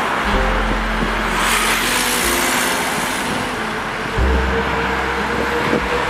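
Road traffic: an Isuzu Citiport city bus drives along as a car passes close, its tyre noise swelling about a second and a half in and fading out by the middle. Some held notes of background music sound underneath.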